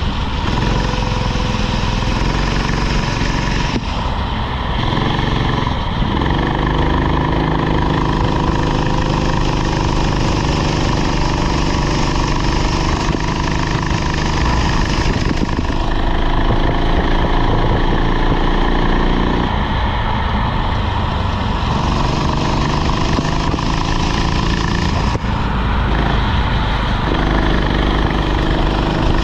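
Rental kart engine running hard, with the revs dropping and climbing back up several times as the driver lifts off and gets back on the throttle.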